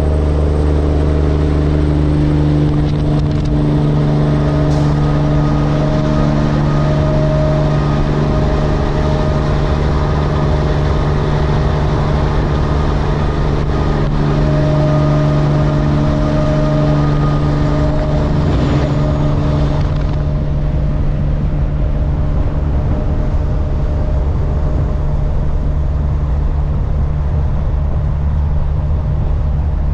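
Semi truck's diesel engine droning steadily at constant speed, with a steady low hum, over tyre and road noise. The hiss of the road noise drops away about twenty seconds in.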